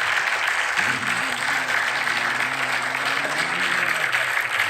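Crowd applause: many people clapping at once in a dense, even patter, with a faint low pitched voice or tone underneath from about a second in.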